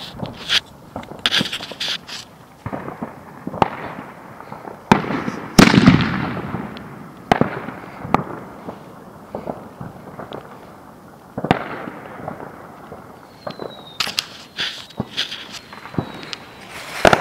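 Fireworks going off: irregular sharp bangs and cracks, one every second or two, each trailing off in an echo. The loudest bang comes about six seconds in.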